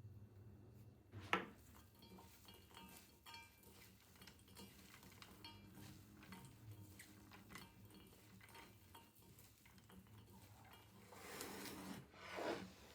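Kitchen utensils handled against dishes: one sharp knock about a second in, then light clicks and scrapes, and a rustling swell near the end.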